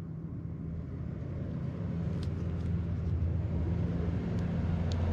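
A steady low motor hum that grows gradually louder, with a few light clicks about halfway through and near the end.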